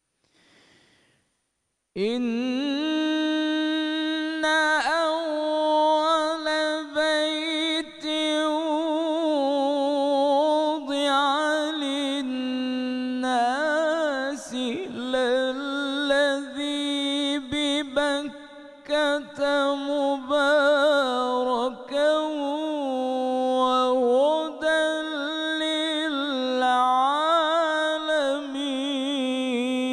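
A solo male reciter's voice in unaccompanied, melismatic Arabic religious chant, starting about two seconds in after a short silence. It has long held notes decorated with wavering runs and brief pauses for breath.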